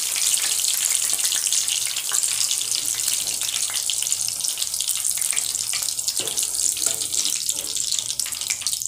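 Battered chicken pieces deep-frying in hot oil: a steady, dense crackling sizzle.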